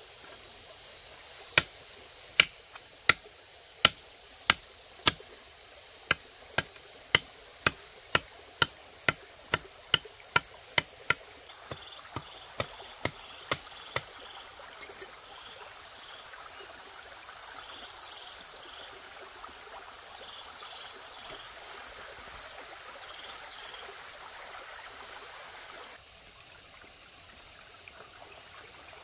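A run of sharp strikes, about one a second at first and then about two a second, growing fainter and stopping about halfway through. Then a steady rushing of stream water with faint insect chirping.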